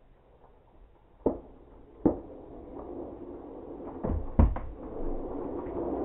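Skateboard on a hard basement floor: four sharp knocks of the board hitting the floor, and from about two seconds in, the wheels rolling with a steady rumble.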